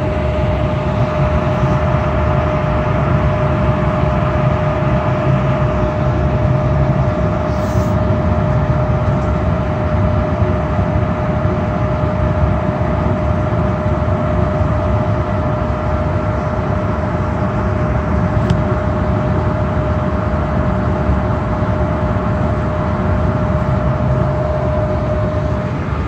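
Gas furnace running, with burners firing and the combustion inducer blower turning: a steady rushing hum with a constant whine above it.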